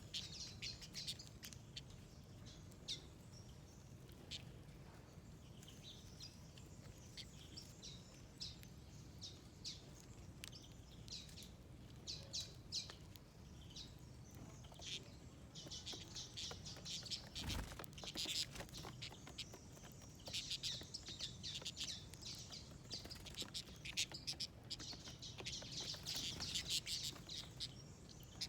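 Wild birds chirping and twittering in many short calls, which thicken into busier bouts of chatter at times. One sharp thump comes about two-thirds of the way through.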